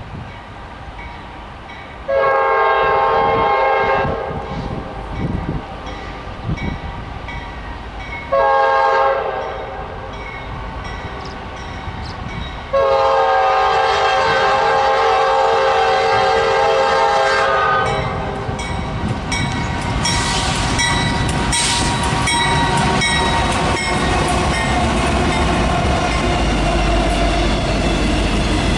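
Diesel locomotive's multi-note air horn sounding three blasts, long, short, then a longer one held about five seconds. The train then rolls past with a steady rumble and wheels clacking rhythmically over the rail joints.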